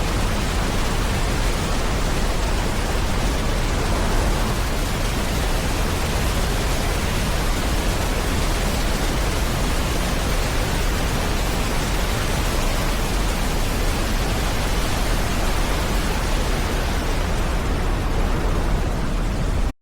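Waterfall running hard, swollen after heavy rain: a loud, steady rush of falling water.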